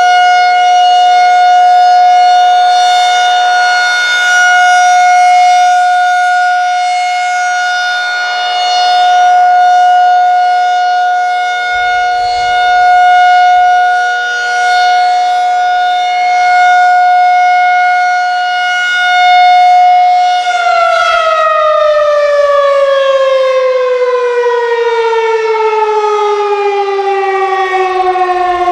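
Federal Signal 2001SRN rotating outdoor warning siren sounding its monthly test. It holds one steady pitch, swelling and fading in loudness as it rotates, then about twenty seconds in it begins winding down with a long, steadily falling pitch as the test ends.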